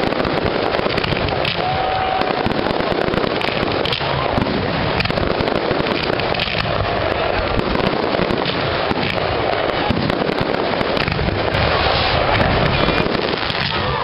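Fireworks display going off in a dense, unbroken barrage of bangs and crackling, as aerial shells burst and fountains spray sparks.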